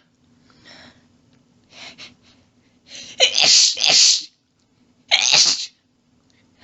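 A person sneezing in a rapid allergy fit: a couple of faint breaths in, then three sneezes in quick succession, two nearly back to back about three seconds in and a third about a second later.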